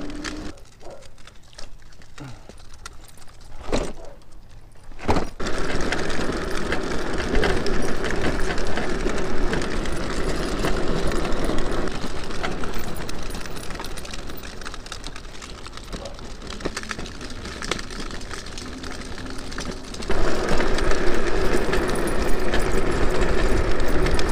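XtremepowerUS electric drift trike rolling on asphalt: its electric motor hums over the rumble of its hard plastic rear wheels. After a few clicks and knocks it starts up about five seconds in, eases off in the middle and runs louder near the end.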